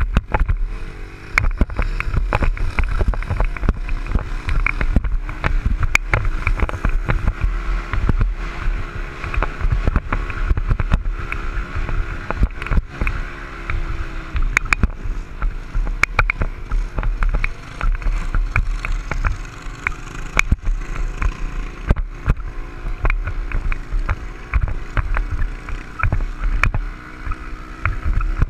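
Dirt bike engine running as the bike is ridden over sand, its pitch rising and falling with the throttle. Heard through a helmet-mounted camera, with wind buffeting and frequent knocks and rattles from the bumpy ride.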